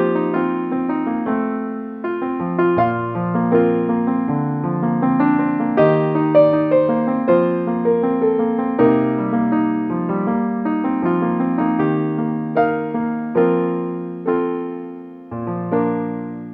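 Background music: a piano piece with a flowing melody over bass notes.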